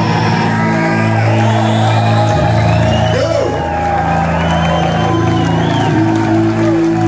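Industrial band playing live: held, droning chords that shift twice, with the crowd cheering and whooping over them.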